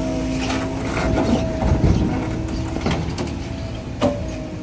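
Heavy diesel machine engine running steadily, with several short metallic clanks and knocks over it.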